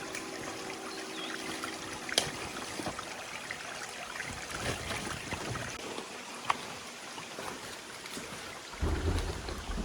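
Steady rush of running water with scattered small clicks. Near the end, a low rumble of wind on the microphone comes in.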